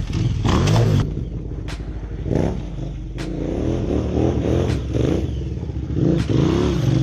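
Large adventure motorcycle's engine revving up and down again and again as the throttle is worked, riding hard off-road.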